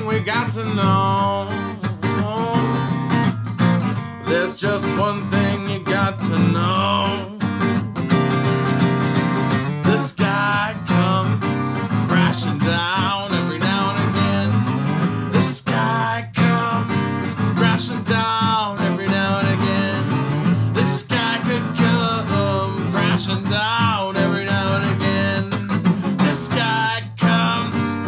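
A man singing a slow song while strumming a steady accompaniment on an acoustic guitar.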